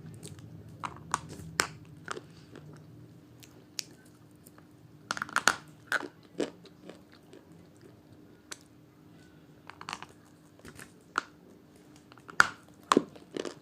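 Biting and chewing a hard red slate bar shaped like a KitKat: scattered sharp cracks and crunches close to the microphone, bunched about five seconds in and again near the end, with quieter chewing between. The bar is very hard.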